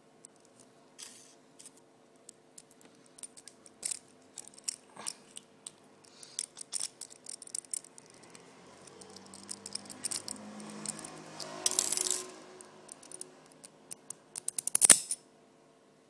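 A bent paperclip and hairpin raking and scratching inside a brass padlock's keyway: a run of small metallic clicks and ticks, a stretch of denser scraping around the middle, and a sharp cluster of clicks near the end, the loudest.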